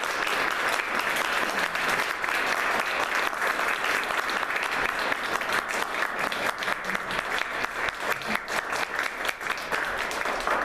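Audience applauding: many hands clapping in a dense, steady patter, with single claps standing out more near the end.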